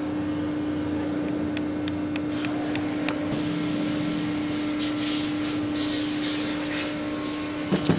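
Steady machine hum, with a few light clicks about two seconds in, then the scrape and rattle of a manual surface grinder's table being cranked along by its handwheel.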